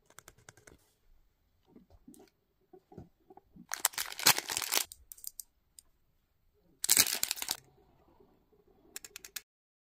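Plastic blind-bag wrappers crinkling and being torn open by hand, with two loud rips about four and seven seconds in, and light clicks and knocks from handling in between.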